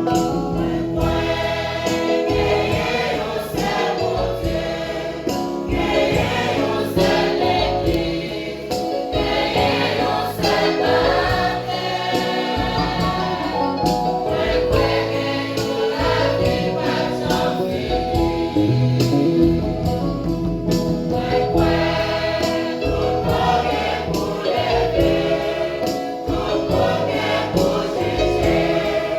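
Church choir singing a gospel hymn, many voices together, with instruments underneath.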